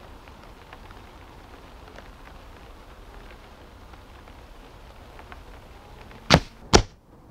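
A Weihrauch HW97K .177 underlever spring air rifle firing: two sharp cracks less than half a second apart near the end.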